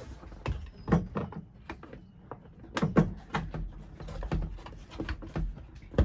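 Hard plastic Volvo Penta engine cover being lowered onto the engine and pressed into place by hand: irregular knocks and clunks, the loudest about a second in, near three seconds and at the end.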